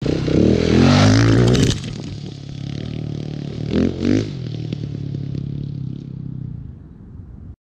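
Husqvarna 701 single-cylinder motorcycle passing close at speed, loud for under two seconds, then riding away with two quick revs about four seconds in. The engine fades into the distance until the sound cuts off suddenly near the end.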